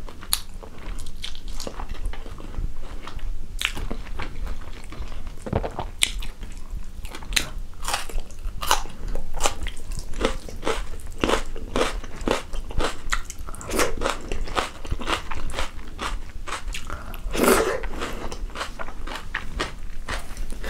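Close-miked chewing of rice and chicken stew eaten by hand, with many short, sharp, wet mouth clicks at irregular intervals.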